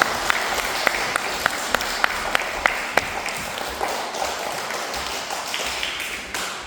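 An audience of young children and staff applauding. A few loud claps stand out at an even pace, about three a second, over the first three seconds, and the applause tails off near the end.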